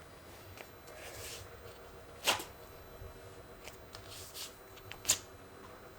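Two short, sharp rips, about three seconds apart, as waxing strips are pulled off a man's leg, with softer rubbing of a strip being pressed onto the skin in between.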